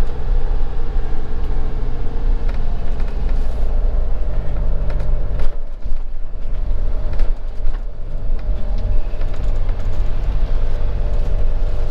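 Motorhome engine running steadily as the van creeps along in a low gear, heard from inside the cab, with a brief dip in the engine sound about halfway through.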